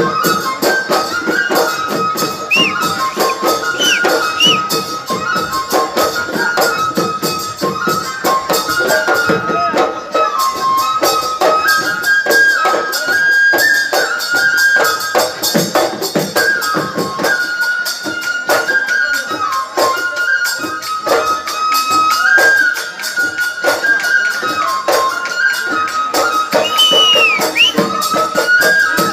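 Live Bihu folk music: a flute plays a stepping melody over rapid dhol drumming and bright jingling percussion.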